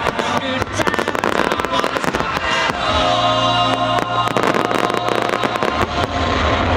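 Fireworks display: rapid, overlapping bangs and crackles of aerial shells bursting, with loud music playing alongside, the music standing out more from about halfway through.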